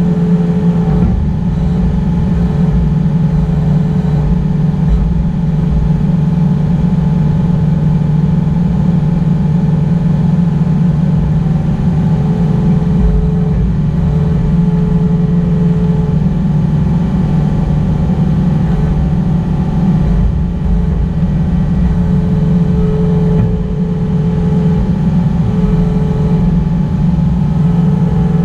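Excavator's diesel engine running steadily at working speed, a constant low drone with a higher tone that comes and goes as the machine works.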